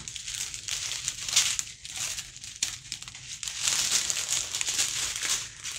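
Small plastic bags of diamond-painting drills crinkling irregularly as they are handled.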